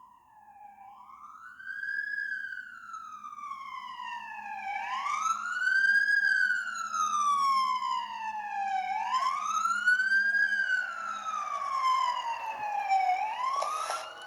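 Emergency vehicle siren in wail mode, its tone rising and falling slowly, about one cycle every four seconds. It grows much louder over the first several seconds and cuts off suddenly at the end.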